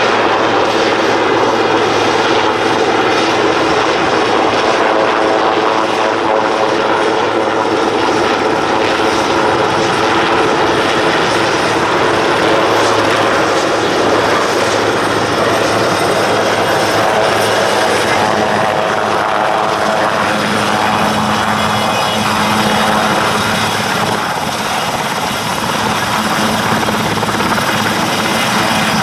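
Sikorsky S-61 heavy firefighting helicopter hovering low and descending to land, its rotors and turbine engines running with a loud, steady rush and hum.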